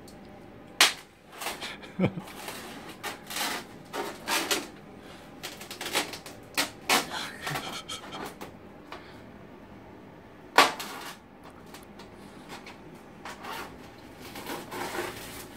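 Hands working at the seam of a polystyrene foam shipping box to open it: an uneven run of scrapes, rustles and sharp clicks, the two loudest clicks about a second in and about ten seconds in.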